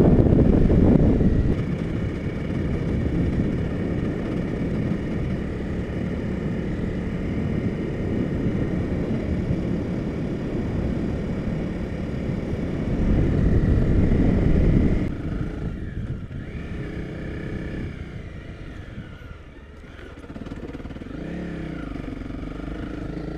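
Honda CRF250 Rally's single-cylinder four-stroke engine running under way on a dirt track. It pulls louder at the start and again about thirteen seconds in with rising pitch, then eases off, dipping lowest about twenty seconds in before picking up again.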